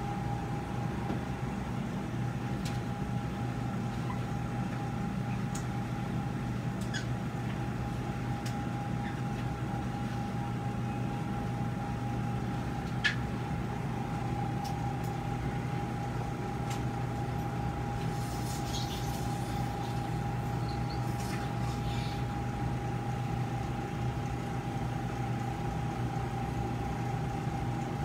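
Steady hum of operating-room equipment with a constant high-pitched whine running under it. A few faint clicks of surgical instruments, one sharper click about halfway through.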